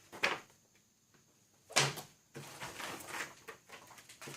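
Unboxing handling noises: a couple of knocks as items and box parts are set down and moved, then the rustling and scraping of cardboard and plastic packaging.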